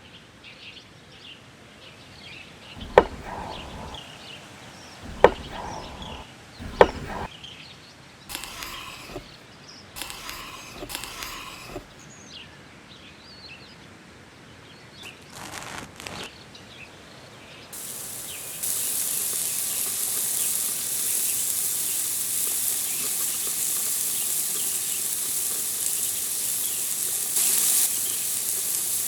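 Sucuk frying in a pan, a steady loud sizzle that starts about two-thirds of the way in. Before it come three sharp knocks a couple of seconds apart and some scattered rustling.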